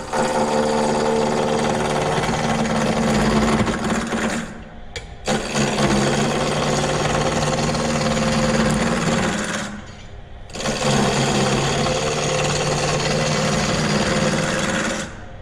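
A scraper is cutting a square basswood blank spinning on a JET mini lathe at about 1,000 RPM, knocking off the corners to rough it round. There are three long cuts of about four seconds each, with short breaks between.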